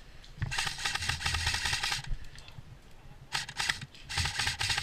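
Airsoft electric gun (AEG) firing on full auto: one long burst of rapid, evenly spaced shots lasting about a second and a half, then two short bursts near the end.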